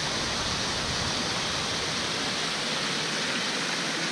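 Steady rushing noise with no distinct events, strongest in the upper range, over a low rumble that dies away near the end.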